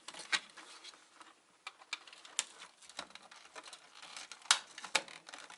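Hard plastic and metal clicking and scraping in irregular taps as a press-fit part is worked out of a UPS's plastic housing, with two sharper snaps near the end.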